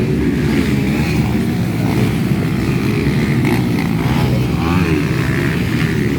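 Motocross bike engines of the 200 cc class running and revving, a steady engine noise with the pitch wavering up and down.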